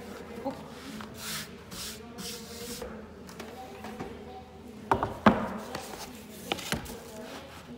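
A few soft rubbing swishes on a wooden table, then a wooden cutting board set down on the table with two sharp knocks about five seconds in and two lighter knocks a moment later.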